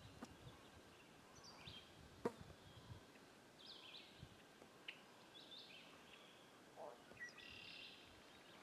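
Faint bird calls: short high chirping phrases every couple of seconds over quiet lake ambience. A single sharp click a little over two seconds in.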